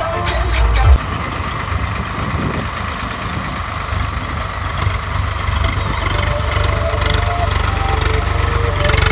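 Swaraj tractor's diesel engine running steadily while it works a rotavator through flooded paddy-field mud. A heavy music beat plays for about the first second, then cuts out.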